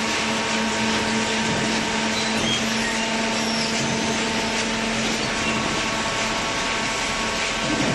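Imabe cardboard baler running, a steady machine noise with a constant low hum.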